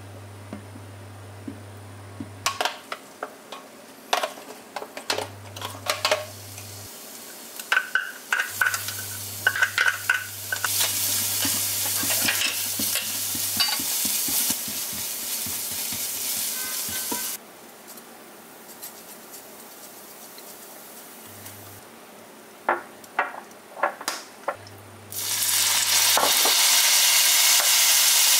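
Minced garlic sizzling in hot oil in a frying pan, stirred with a silicone spatula that taps and scrapes against the pan. The sizzle comes in two stretches, a steady one in the middle and a louder one near the end.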